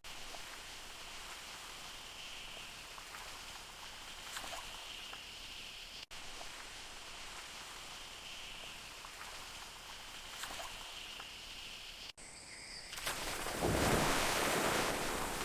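Rainforest ambience: a steady high insect-like drone with scattered small clicks, broken by two brief dropouts. Near the end a louder rushing noise swells up and stays.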